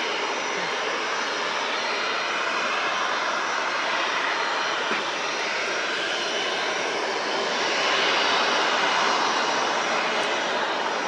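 Airliner engines running with a steady rushing noise and faint slowly shifting whine, swelling slightly about eight seconds in.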